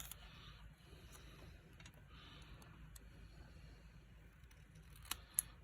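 Faint scissors cutting paper cardstock in a few short stretches, with two sharp clicks about five seconds in.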